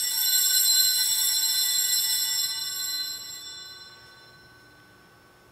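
Altar bells ringing at the elevation of the consecrated host, a bright, sustained ringing with many high tones that shimmers for about three seconds and then dies away.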